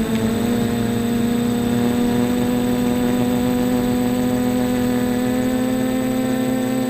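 Small quadcopter's electric motors and propellers humming steadily in flight, the pitch drifting slowly upward.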